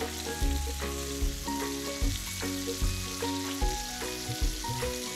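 Pepper-crusted beef steaks sizzling steadily in butter and oil in a frying pan, with background music under the hiss.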